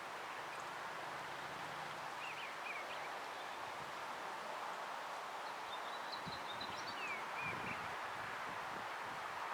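Steady outdoor background hiss with a few short bird chirps, a couple about two seconds in and several more around six to eight seconds in; the siren is not sounding.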